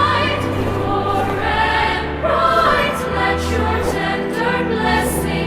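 Choral music: a choir singing long held notes of a slow hymn-like song over a sustained low bass.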